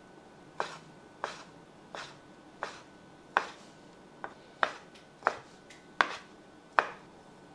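Kitchen knife dicing soaked dried shiitake mushrooms on a cutting board: about ten sharp taps of the blade striking the board, evenly spaced at roughly three every two seconds.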